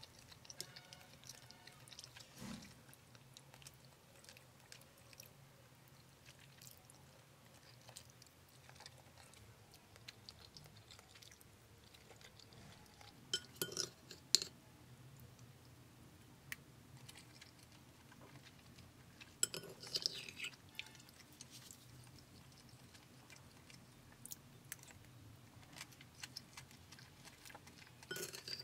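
Quiet eating: soft chewing of a creamy noodle and chicken dish, with a few sharp clinks of a metal spoon against a ceramic bowl near the middle and again about two-thirds of the way in.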